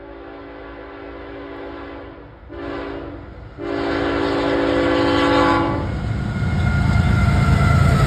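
Locomotive air horn sounding for a grade crossing, a chord of several tones blown in a long blast, a short blast and another long blast. After that the heavy rumble of the passing train grows loud near the end.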